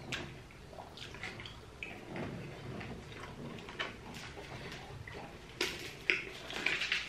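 Eating at a table: scattered small clicks and scrapes of plastic forks against foam takeaway trays, with chewing, and a couple of sharper clicks a little past the middle.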